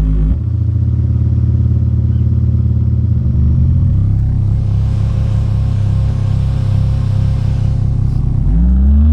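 Deep bass played loud through a homemade 500-watt amplifier and its speakers, low steady tones that shift pitch a few times with a buzzing rattle, ending in a rising tone.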